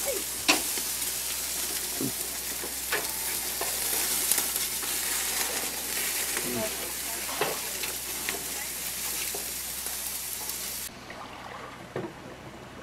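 Meat sizzling and frying on a grill, a steady crackling hiss with a few sharp clicks of metal tongs. It cuts off suddenly near the end.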